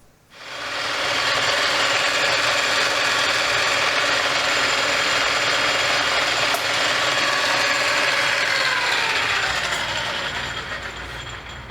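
Electric drill starting up and running steadily while boring a number 7 hole through a metal clamp piece, then winding down with a falling pitch near the end.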